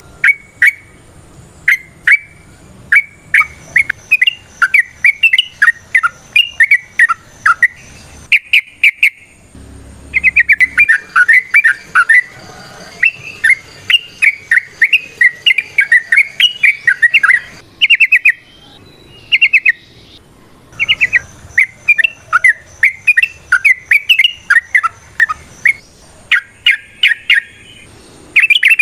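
Yellow-vented bulbul (trucukan) singing long, rapid runs of bubbling, chattering notes, with a few short pauses between phrases.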